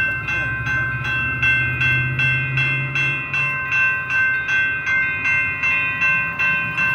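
Railroad crossing signal's General Signals Type 2 electronic bell ringing steadily in an even, repeating ding while the crossing's warning lights flash, meaning a train is approaching or occupying the crossing. A low rumble underneath fades out about halfway through.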